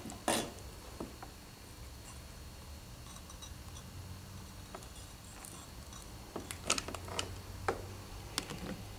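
Light clicks and knocks of hard plaster rock castings being handled: one sharper knock just after the start, another about a second in, and a quick run of taps in the last three seconds, over a faint steady low hum.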